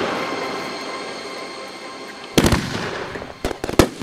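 Aerial fireworks bursting. A pair of sharp bangs comes about two and a half seconds in, then a quicker run of bangs near the end, over a fading background of earlier bursts.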